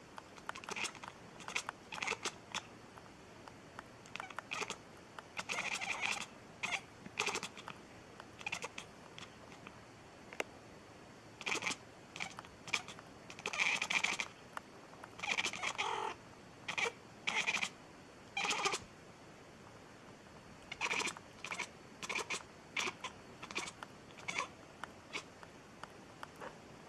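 A domestic cat making a string of short, odd vocal sounds at irregular intervals, some in quick runs of several, with a few longer calls around the middle.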